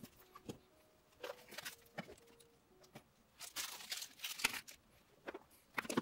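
Faint, scattered rustling of packaging and light taps of small boxes being handled and set down on a desktop, busiest around the middle.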